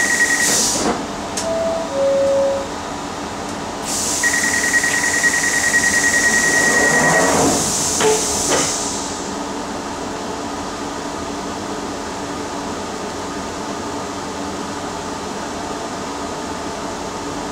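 Inside a London Underground D Stock carriage standing at the platform: a couple of short electronic tones, then a rapid high door-closing warning beep for about three seconds over a loud hiss of air, and two knocks as the sliding doors shut. Afterwards the carriage's steady ventilation hum runs on while the train stands.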